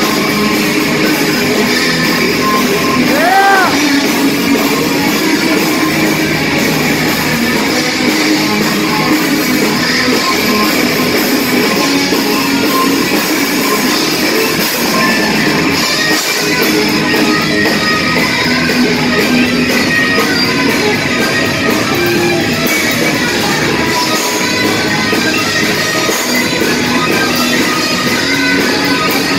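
Live rock band playing loud: electric guitar over bass guitar and drum kit, with a note sliding up in pitch about three seconds in.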